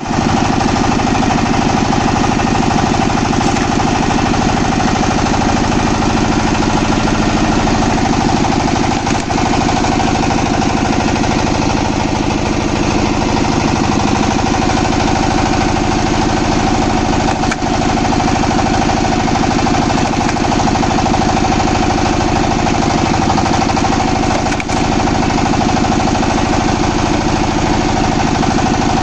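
Wood-cutting machine running steadily with a loud, fast, even mechanical rattle over a constant hum, dipping briefly a few times.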